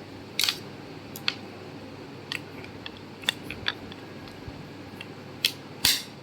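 Scattered short, sharp clicks and light taps at irregular intervals, the loudest about half a second in and near the end, over a faint room background.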